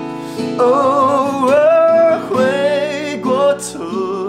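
Music: a man's solo voice singing a slow Mandarin ballad with vibrato over strummed acoustic guitar.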